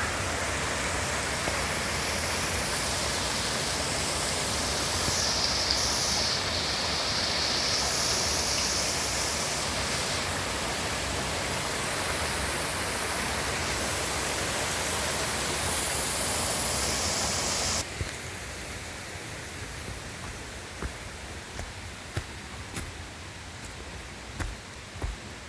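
Steady rushing of a brook's waterfall, an even hiss of falling water. About 18 seconds in it cuts off abruptly to a quieter background with a few small clicks and knocks.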